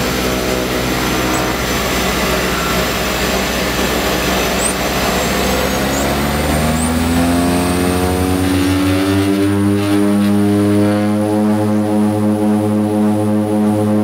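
The two PT6A turboprop engines and propellers of a de Havilland Canada DHC-6 Twin Otter, heard from inside the cockpit as power is brought up. A broad rushing noise at first, then about halfway through the engine and propeller drone rises in pitch and settles into a steady, pulsing hum.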